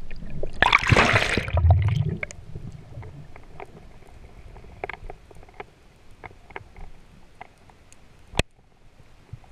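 Underwater sound picked up by a diver's camera: a loud rush of water and bubble noise with a low rumble about a second in, then faint scattered crackling clicks, with one sharp click near the end.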